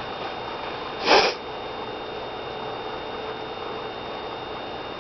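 A person sniffs sharply once through the nose, about a second in, breathing in laundry detergent to bring on a sneeze. A steady faint hum runs behind it.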